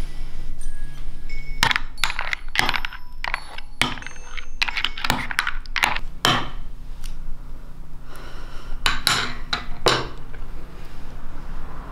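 Spoon scraping and clinking against a ceramic bowl of cream, a quick irregular run of sharp clinks and short scrapes starting about two seconds in.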